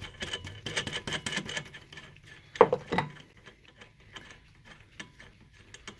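Steel threaded rod, nut and receiver cup of a bushing press being unscrewed and handled once the old camber arm bushing is pressed out. A quick run of clicks in the first second and a half, two louder metal clanks about two and a half and three seconds in, then scattered light ticks.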